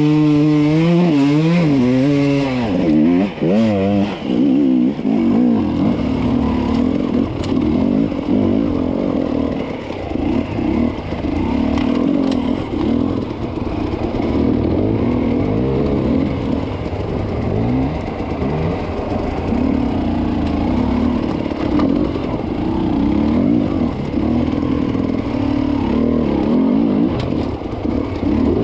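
Off-road dirt bike engines running at low revs with repeated throttle blips, as the bikes pick their way over roots, rocks and logs, with clattering from the bikes' chassis and suspension over the rough ground.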